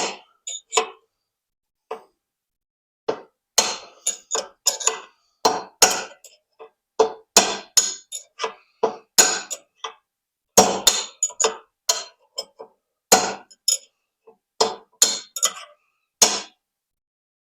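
Hammer blows on a nail used as a drift against a motor cradle bushing, a long irregular series of sharp metallic strikes with some ringing, a few close together in clusters. The bushing is not budging.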